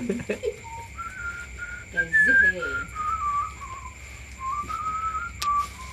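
A person whistling a slow run of held notes that step up and down in pitch. A voice cuts in briefly about two seconds in, and there is a sharp click near the end.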